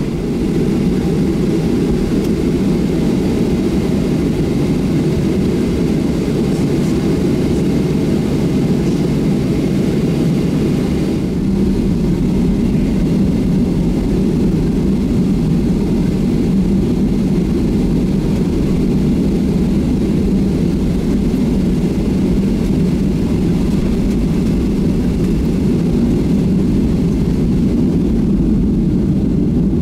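Boeing 737-700's CFM56-7B jet engines running with a steady low rumble, heard inside the cabin from a window seat over the wing as the airliner moves onto the runway at the start of takeoff.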